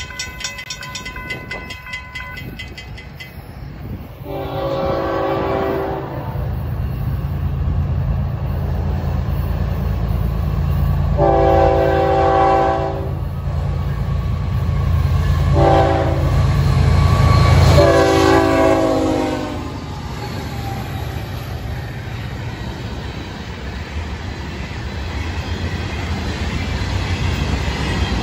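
Railroad crossing bell ringing briefly, then a Florida East Coast freight locomotive's multi-tone air horn sounding the grade-crossing signal of two long blasts, one short and one long, over the low rumble of its diesel engines. The freight cars then roll past with a steady rumbling.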